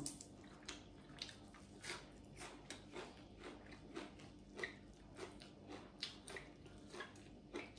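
Faint, irregular soft clicks and crackles of food handled by hand, roughly two or three a second: fresh herb sprigs picked apart, then sticky rice pinched and rolled between the fingers.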